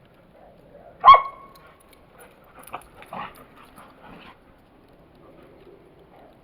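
Australian Shepherd barking once, loud and pitched, about a second in, during play in the snow. Several softer, shorter sounds follow over the next few seconds.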